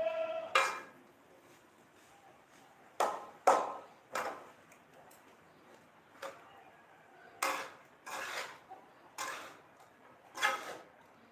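Metal spatula clanking and scraping against a wok while stir-frying: about nine irregular strikes, some ringing briefly.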